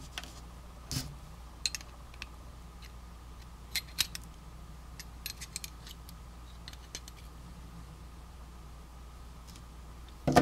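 Scattered light metallic clicks and taps: needle-nose pliers working inside the head of a vintage Craftsman ratchet, and small steel parts such as the pawl and anvil being handled and set down. The loudest tap comes about four seconds in, and there is a louder knock near the end.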